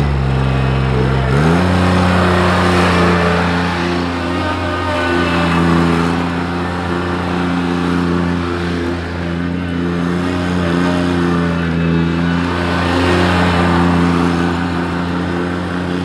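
Grasshopper 721D zero-turn mower's diesel engine brought up from idle to high speed in the first second and a half, then running steadily at high speed as the mower drives across the grass, its pitch dipping slightly now and then.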